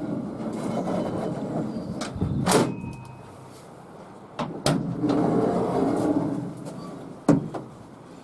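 A SsangYong Musso pickup's steel tailgate being swung up and shut with a loud clunk, then a double click as it is unlatched, and a rumbling as it is lowered, ending in a sharp knock as it drops onto its stay cables. Loose steel bars resting on it rattle and scrape as it moves.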